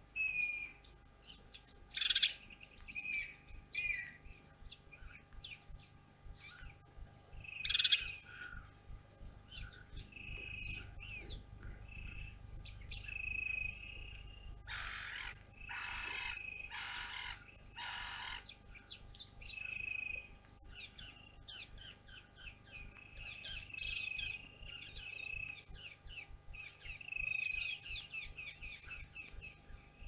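Several wild birds calling together: short high chirps and whistled notes throughout, with four harsh, noisy calls about halfway through.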